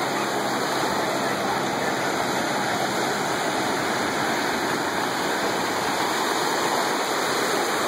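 Ocean surf breaking and washing up into the shallows, a steady rushing noise.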